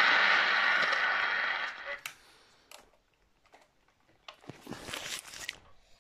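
CB radio speaker hissing with static on an AM channel, cutting off suddenly about two seconds in; then several sharp clicks from the radio's front-panel buttons being pressed, with a short stretch of handling noise.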